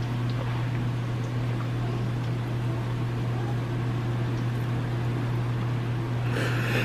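Hot oil bubbling and sizzling in a pot as breaded s'mores bombs deep-fry, over a steady low hum.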